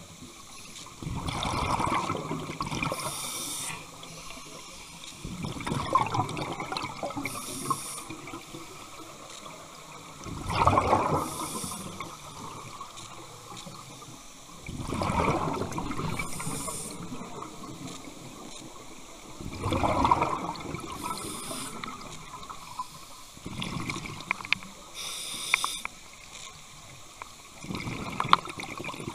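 Scuba diver breathing through a regulator underwater: a brief hiss on each inhale, then a loud gurgling burst of exhaled bubbles, repeating about every four to five seconds.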